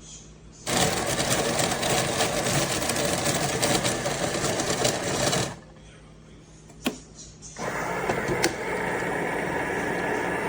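Coffee maker running: a loud motor run of about five seconds stops, a sharp click follows, then a steadier machine sound starts about a second later and continues.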